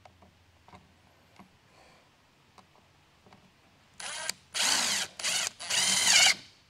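RIDGID cordless drill with a nut-driver bit running in four short bursts, starting about four seconds in, turning screws in the plastic blower-motor housing of a car's air-conditioning box; the motor speed rises and falls with the trigger. Light clicks of parts being handled come before.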